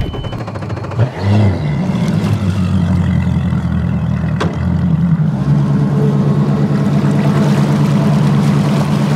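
Mercury Pro XS outboard motor starting about a second in, then running steadily as the bass boat gets under way, its note shifting about halfway through.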